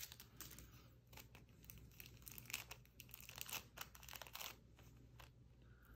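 Faint, scattered crinkling of a thin clear plastic trading-card pack wrapper being torn open by hand.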